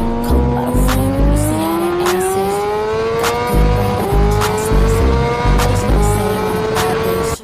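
Motorcycle engine accelerating hard, its pitch climbing steadily for about seven seconds before dropping sharply at the end, as at a gear change. A rap track with a heavy bass beat plays along.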